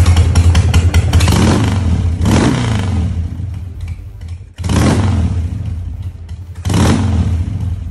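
Harley-Davidson Sportster 1200 Custom's air-cooled V-twin running through a newly fitted Kuryakyn Hyper Charger intake. The throttle is blipped three times, and each rev falls back toward idle.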